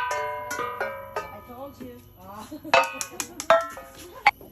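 Bell-like struck percussion: a series of sharp strikes, each ringing out in pitched metallic notes that fade. A few strikes come near the start, a quicker cluster about three seconds in, and a last strike near the end.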